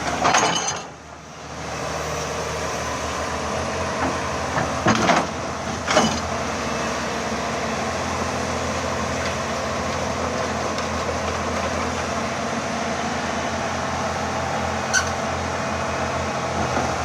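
Excavator's diesel engine running steadily under work, with a few short knocks about five, six and fifteen seconds in. The engine sound dips briefly just after the start.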